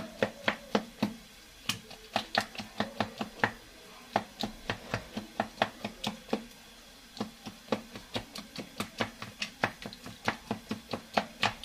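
Boiled beans being mashed by hand in a bowl: a utensil knocks against the bowl in quick runs of about four strokes a second, pausing briefly twice.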